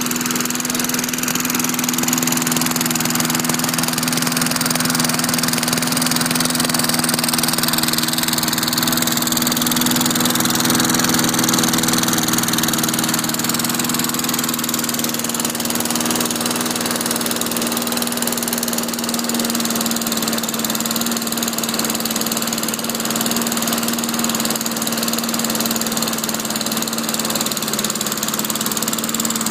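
Lawn mower engine running steadily at an even speed, fuelled by wood gas from a gasifier.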